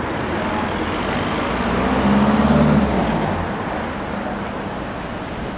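Busy street traffic: a motor vehicle's engine passes close by, loudest about two seconds in, then fades back into the general road noise.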